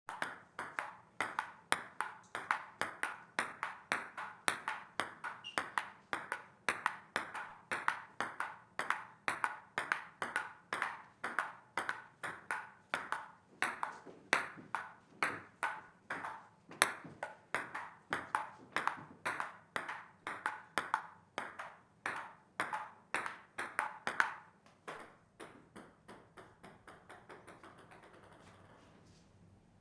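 Table tennis rally: a celluloid-type ping pong ball struck back and forth, with a steady run of sharp, hollow ticks of ball on paddle and table, about two to three a second. Near the end the ticks come quicker and fainter and die away, like a ball bouncing to rest.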